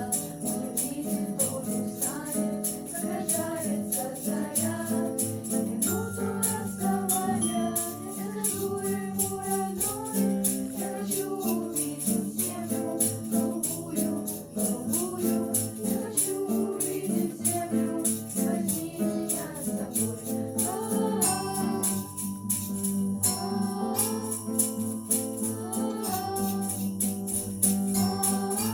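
A song with several voices singing together over a steady beat of shaker and tambourine-like jingles.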